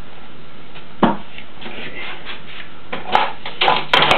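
Wooden window frame being handled on a workbench, knocking and rubbing against a wooden board: one knock about a second in, then a quick series of wooden knocks and clicks near the end.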